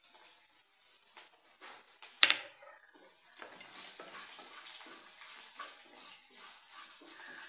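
A metal utensil knocks once sharply against a pan about two seconds in; from about three and a half seconds on, chopped onions sizzle in hot oil with a steady hiss and crackling.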